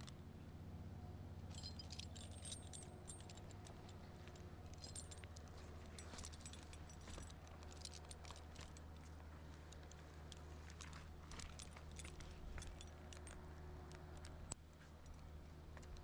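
Metal climbing hardware on a tree climber's harness and rope system, such as carabiners and rings, lightly clinking and jingling in scattered clicks as he moves. A faint steady low hum runs underneath.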